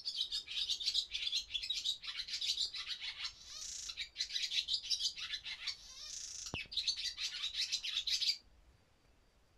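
Barn swallow singing: a fast, continuous twittering and chirping warble that stops abruptly about eight seconds in.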